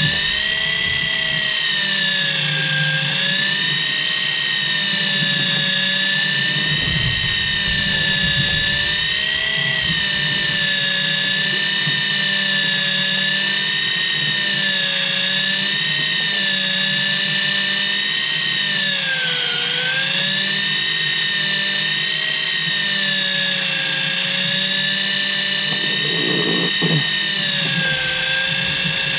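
Electric fishing reel motor whining steadily as it winds in line with a fish on, its pitch wavering and dipping briefly about two-thirds of the way through as the load changes. A steady low hum runs underneath.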